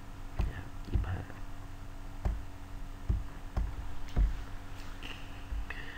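About six soft, irregularly spaced taps and knocks of a stylus on a tablet while a number is handwritten, over a faint steady hum.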